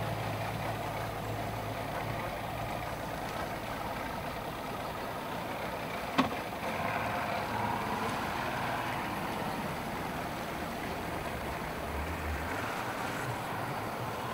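Outboard motors on fishing boats running steadily as the boats move off from a dock, with the wash of water behind them. A single sharp knock about six seconds in.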